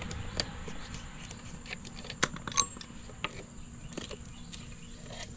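A faint, steady high insect buzz with a few scattered light clicks and taps.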